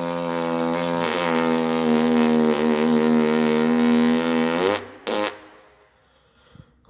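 One long, loud, buzzing fart noise held for nearly five seconds with a slightly wavering pitch, cutting off suddenly, then a short second blast.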